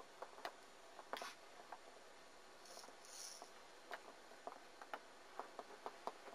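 Near silence with faint, scattered soft taps and clicks from small animals moving on a bed among toys, and two brief soft hissing sounds about three seconds in.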